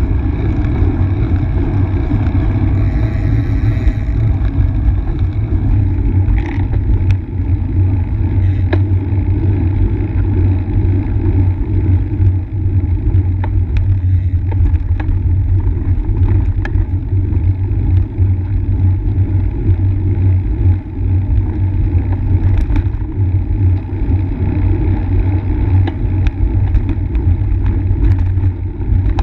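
Steady, loud rumble of road and tyre vibration with some wind, picked up by a bike-mounted camera riding on a paved road, with scattered small clicks.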